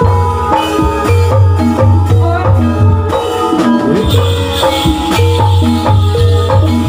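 Javanese gamelan music for a Gedruk dance: metallophone notes over a steady low drum beat. From about four seconds in, the dancers' large ankle bells jingle as they stamp.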